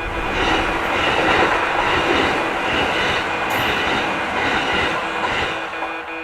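Electric train passing a level crossing: a loud rush of steel wheels on rail with a rhythmic clickety-clack. The crossing's warning bell rings on underneath, about three strokes a second, and comes through clear again near the end as the train goes by.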